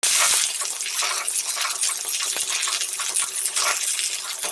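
Okra sizzling as it sautés in hot mustard oil in an iron kadhai, with a steel spatula scraping and clinking against the pan as it is stirred.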